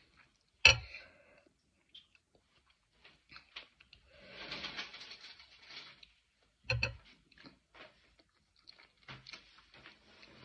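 Close-up eating sounds: chewing and fingers handling and tearing food, with small scattered clicks. A sharp click comes about a second in and another knock near seven seconds.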